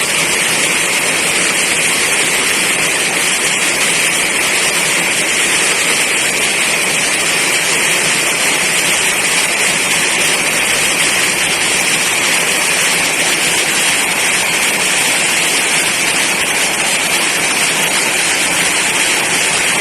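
Heavy rain pouring down steadily: a dense, even hiss of downpour that does not let up.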